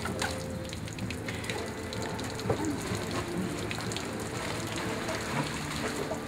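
Ice cubes clinking and rattling in a plastic bag as the ice is handled and shaken out, with the bag rustling: a patter of small scattered clicks.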